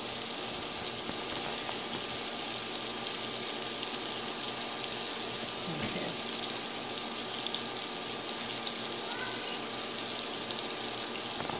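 Butter melting in hot olive oil in a frying pan, sizzling steadily.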